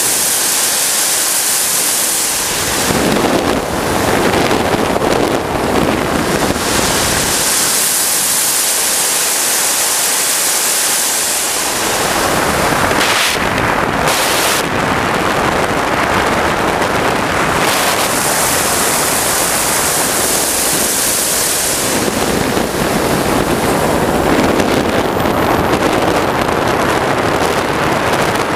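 Turbine engine of a large RC sportjet model in flight: a loud, steady rushing hiss that swells and shifts every few seconds between a high hiss and a lower rush as the jet passes, with a faint falling whine near the end.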